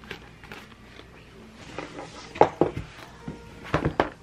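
Small items being packed into a cloth tote bag on a table: scattered light knocks and clicks as a notebook, a plastic pencil case and other things are picked up and set down, the loudest about two and a half seconds in and again near the end, with soft fabric rustling.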